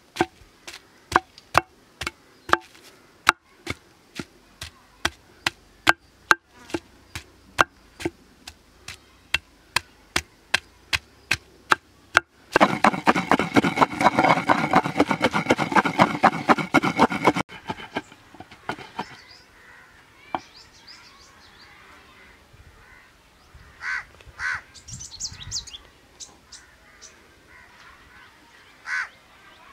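Wooden pestle pounding ginger and red chilli in a stone mortar: sharp knocks about two a second, then about five seconds of rapid, dense pounding from around twelve seconds in, then stopping as the paste is scooped out.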